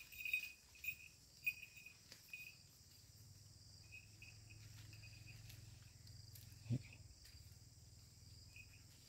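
Faint field ambience: a steady insect drone, with a run of short high chirps in the first couple of seconds and a few more around four seconds. One brief low voice sound comes about two-thirds of the way through.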